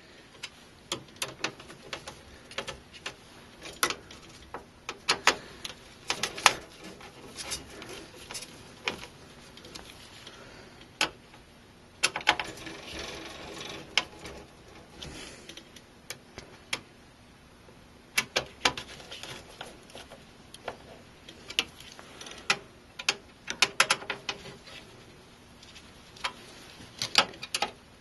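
Scattered, irregular sharp clicks and ticks of a hand screwdriver snugging down the small screws that fix a motherboard to the metal standoffs of a PC case, with a few seconds of softer rubbing noise about halfway through.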